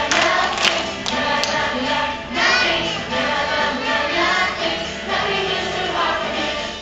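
A group of young children singing a worship song together over instrumental music, with a few sharp clicks in the first second or so.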